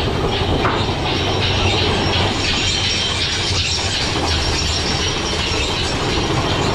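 Mine-train roller coaster climbing a chain lift hill: the lift chain and anti-rollback pawls clatter steadily over a low rumble from the train.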